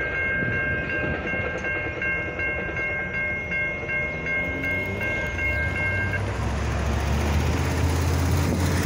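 Railroad grade-crossing bell ringing steadily as the gates lift after a Metra train has passed. The bell stops about six seconds in, and a low steady rumble of road traffic grows under it near the end.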